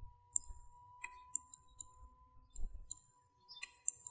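Computer mouse clicking, about a dozen short, sharp clicks at irregular intervals, over a faint steady high tone.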